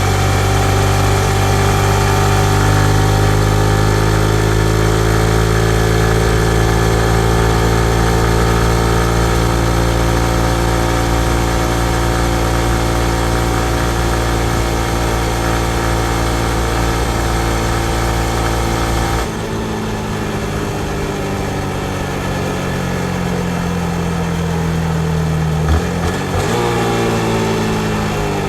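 2019 Yamaha MT-15's 155 cc single-cylinder engine running steadily under the rider at a near-constant pitch. About two-thirds in the sound changes abruptly and the engine note slowly falls. Near the end it rises in pitch as the bike accelerates.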